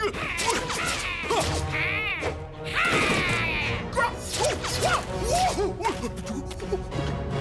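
Cartoon soundtrack: background music with bending, squeaky pitched sounds over it, the brightest rising and falling sweeps coming about two and three seconds in.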